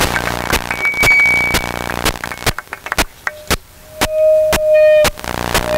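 Audience applause for the scholarship recipients, dense at first and thinning to scattered claps after about two and a half seconds. Two short steady tones sound over it, a high one about a second in and a lower one near the four-second mark.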